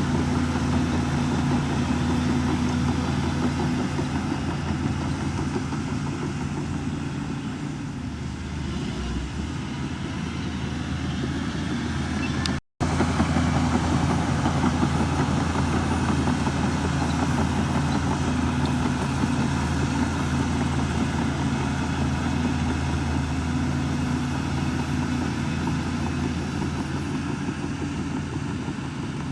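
Heavy diesel engine of earthmoving machinery running steadily at an even speed. The sound cuts out for a moment about twelve seconds in.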